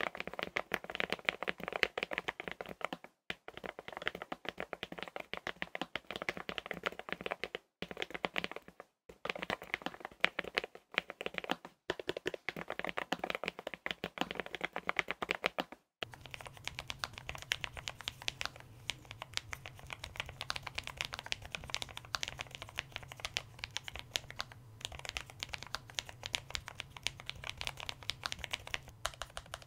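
Typing on a Lofree Edge ultra-low-profile mechanical keyboard with Kailh POM 2.0 switches and PBT keycaps: a fast, continuous run of key clicks, broken by a few brief cuts. About halfway through, the recording switches from a handheld voice recorder to a USB condenser microphone, and the clicks become fainter and thinner over a low steady hum.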